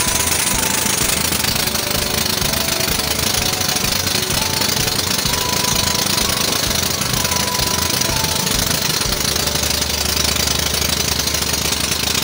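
A small fishing-boat engine running steadily with a fast, hard knocking beat.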